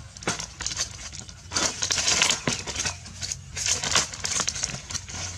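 Dry palm fronds being lifted and dragged, their stiff stalks and papery sheath bases scraping and crackling against each other in irregular rustling surges, loudest about two seconds in and again near four seconds, with a few sharp snaps.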